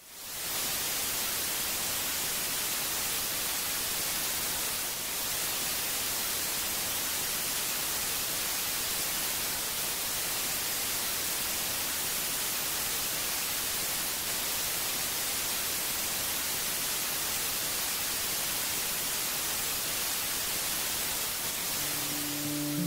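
Steady hiss of television static: the white noise of a TV receiving no signal. It fades in at the start and dips briefly about five seconds in.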